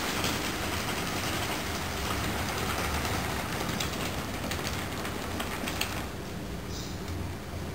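Model train running on the layout's track: a steady rolling noise over a low hum, with a quick run of clicks from the wheels crossing rail joints. The rolling noise drops away about six seconds in.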